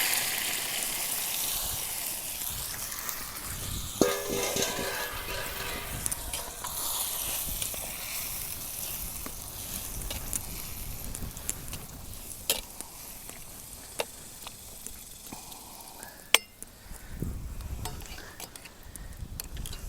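Beans cooking in bacon fat in a cast-iron Dutch oven over campfire coals, sizzling and bubbling while being stirred, with a few sharp clinks of the spoon against the pot in the second half.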